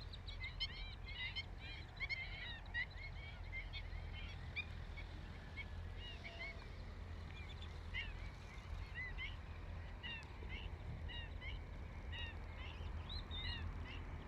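Birds calling: many short, high chirps overlapping in a chorus, thick at first and thinning to scattered calls, over a steady low rumble.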